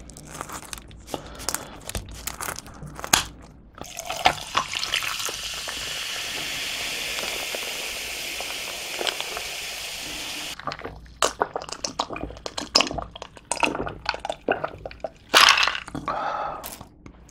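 Kitchen scissors snipping through crisp pizza crust in a run of sharp crunching clicks. Then soda is poured from a can into a glass full of ice, with a steady pour and fizz lasting about six seconds. After that come ice clinks and gulps as the drink is taken.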